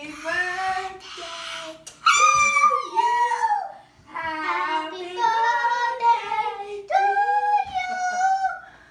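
A child singing in a high voice: several phrases of long held notes that slide up and down in pitch, with a breathy stretch near the start.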